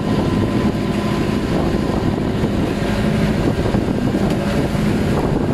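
Outrigger fishing boat's engine running steadily while underway, with water rushing and splashing along the hull.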